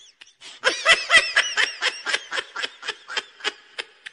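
High-pitched laughter: a quick run of giggling 'ha-ha' pulses, about four or five a second, loudest near the start and trailing off toward the end.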